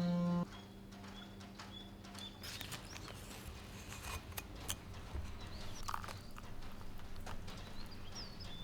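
Music cuts off about half a second in. It gives way to irregular sharp clicks and knocks, with a few short high chirps among them.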